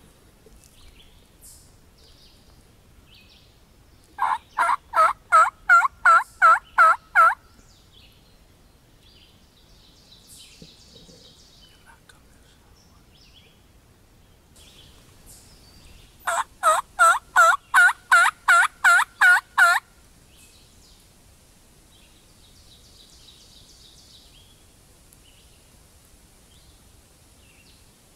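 Two runs of hen-turkey yelps, about ten notes each at roughly three a second, made close by on a turkey call to draw in a gobbler. The first run comes about four seconds in and the second about sixteen seconds in. Between them there is only faint woodland background.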